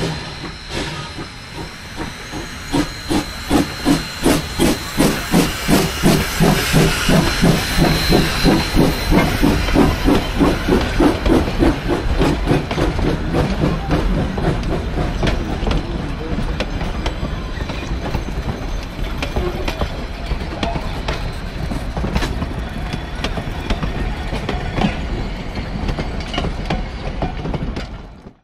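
Rio Grande Southern No. 20, a narrow-gauge 4-6-0 steam locomotive, working past with a brisk, even beat of exhaust chuffs, about two and a half a second. The chuffs fade after about twelve seconds as the engine moves away. Its coaches and caboose then roll by with a steady rumble and clicking of wheels on the rails.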